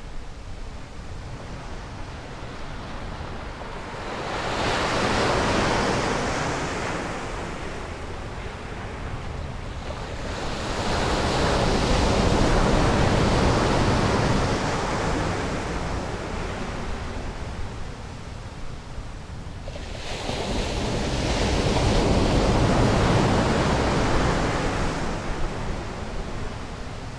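Sea waves breaking and washing up a sandy beach, the surf rising and falling in three slow surges.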